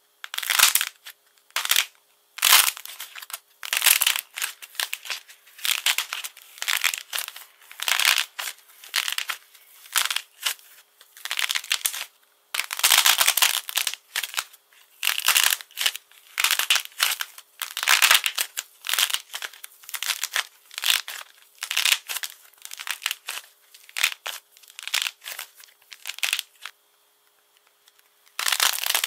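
Hardened painted coating on soft clay figures cracking and crinkling as hands squeeze and tear them apart: crisp crackly bursts in quick succession, roughly one squeeze a second. A short pause near the end, then the crackling starts again.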